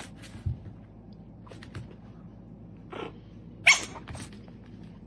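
A dog barking: one short, loud bark about three and a half seconds in, with a few fainter short sounds before it, over a steady low hum.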